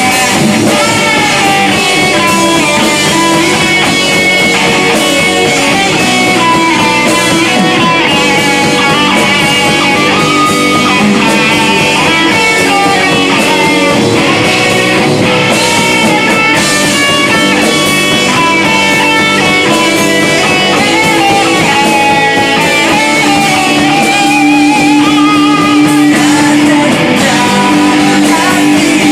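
Live rock band playing loud: electric guitars, bass guitar and drum kit, with a male vocalist singing over them.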